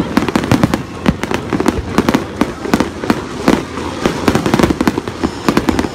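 Fireworks display: aerial shells bursting in a rapid, unbroken string of bangs and cracks, several a second.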